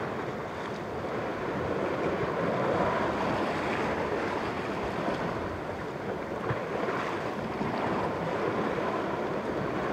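Sea surf washing against the rocks below a cliff: a steady rushing wash that swells a little about three seconds in and again near the end.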